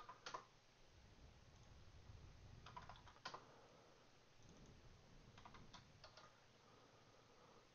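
Faint computer keyboard typing and mouse clicks in three short groups, over near-silent room tone.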